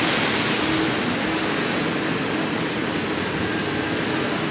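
Steady rush of water from a small rock waterfall spilling into a pool, an even hiss that eases slightly over the few seconds.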